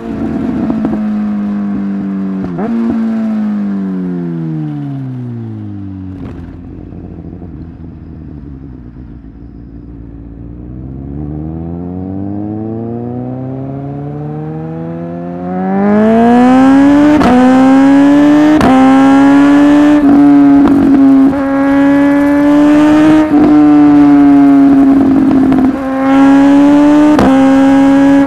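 Suzuki GSX-S1000 inline-four engine on the move: the revs fall away for about six seconds, the bike runs low for several seconds, then the revs build. About 16 seconds in it goes suddenly loud under hard acceleration, broken by a string of short cuts and sharp cracks as the quickshifter changes gear.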